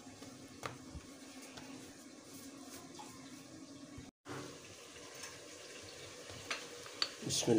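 Hands pressing and patting a ball of dough flat on a wooden board: a few faint soft taps over a steady low hum and hiss, broken by a brief silent gap about four seconds in.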